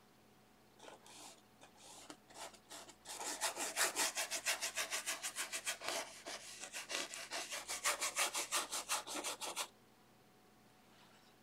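A paintbrush scrubbing oil paint into textured canvas with quick back-and-forth strokes. A few separate strokes come first, then a steady run of about six strokes a second begins about three seconds in and stops shortly before the end.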